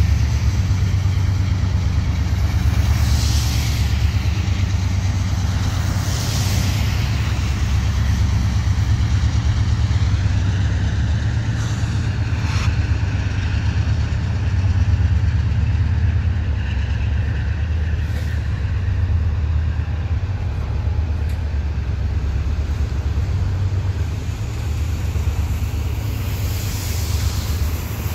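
Norfolk Southern freight train passing: the diesel locomotive consist rumbles by, followed by double-stack intermodal container cars rolling past, a steady low rumble throughout with a few brief hissing surges.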